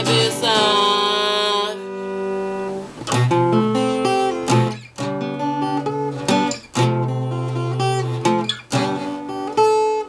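A man's voice holds the last sung word, with vibrato, for about the first two seconds. After that an acoustic guitar plays chords alone, with sharp strums.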